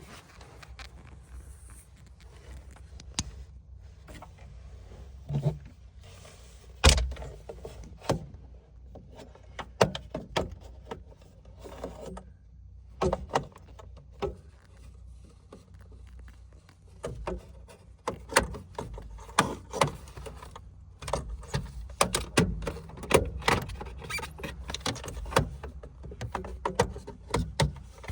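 Irregular clicks, knocks and light rattles of hands handling plastic parts around a car's cabin air filter housing. A sharp knock comes about seven seconds in, and the clicks come thicker in the second half.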